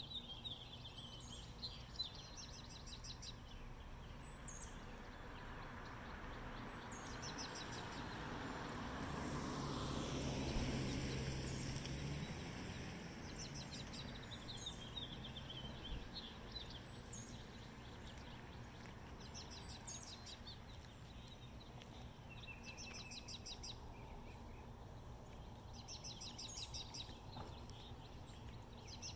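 Songbirds singing short trilled chirps again and again over faint outdoor background noise. In the middle, a rushing sound swells up and then fades away.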